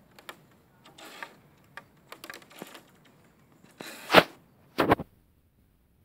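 Scattered light clicks and knocks from high ropes course gear: hanging wooden beams, steel cables and clips. A sharper knock comes about four seconds in and a double knock just before five seconds, then it goes quiet.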